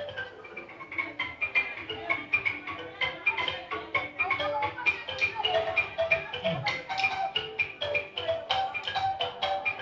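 Xylophone music with percussion: a quick, busy run of struck pitched notes over a steady beat.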